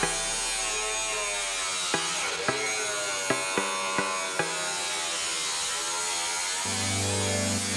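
Background music with about six sharp metallic knocks a half-second or so apart in the middle stretch: a hammer striking a cold chisel to split the spot-welded steel boot panel from its seam.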